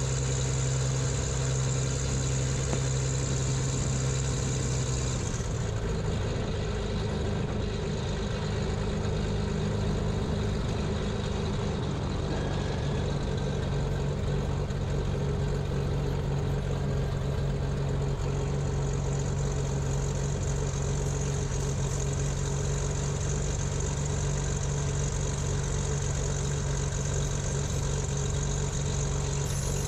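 Cessna T310R's twin piston engines droning steadily; the engine note shifts about five seconds in and then holds.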